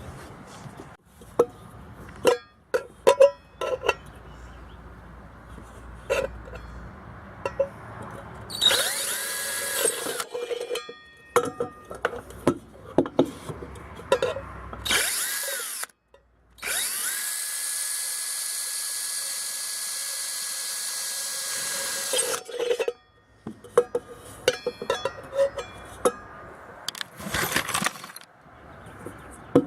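Electric drill with a 3/16-inch bit drilling drainage holes in the bottom of an old tea kettle, running in several bursts: short ones about nine and fifteen seconds in, a long steady run of about six seconds starting around seventeen seconds in, and another short one near the end. Between the runs come sharp clicks and knocks of the drill and kettle being handled.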